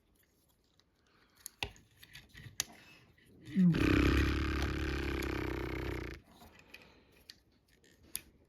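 Plastic parts of a Transformers action figure clicking as it is worked through its transformation. About three and a half seconds in, a loud, rough, growl-like sound starts with a brief rise and runs for about two and a half seconds before stopping.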